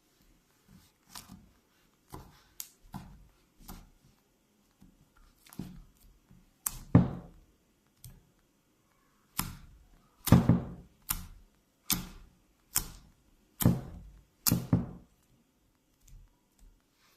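Homemade slime being squeezed and slapped in the hands for ASMR: a string of irregular sharp pops and soft thuds, growing louder and more frequent in the second half.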